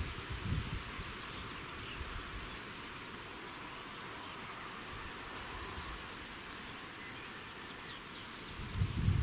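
A stridulating insect sings in three high, rapidly pulsed chirping bursts of about a second each, with a pause of two to three seconds between them. A low rumble swells near the end.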